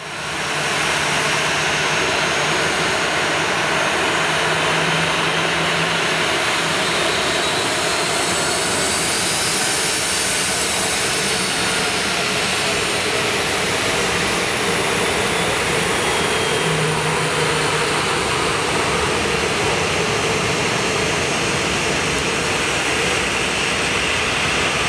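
Boeing 737-800's CFM56-7B jet engines running at low taxi power: a steady rushing with a faint high whine, fading in over the first second.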